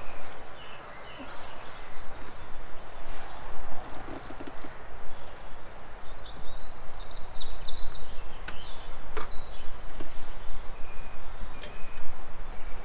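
Small birds chirping and twittering over a steady outdoor noise bed, with a few light knocks in the second half.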